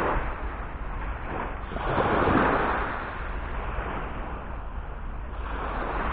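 Small waves breaking and washing up a sandy beach, the surf swelling and fading about two seconds in and again near the end, over a steady low rumble of wind on the microphone.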